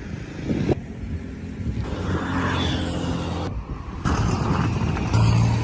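Motor vehicle engine running, heard in several spliced segments that cut in and out abruptly.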